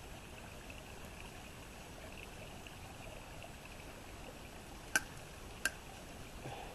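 Diced bacon, crocodile meat and onion frying gently in butter in a thin metal mess-kit pot, a steady quiet sizzle with fine crackle. About five seconds in, two sharp metallic clicks as the knife blade knocks against the pot.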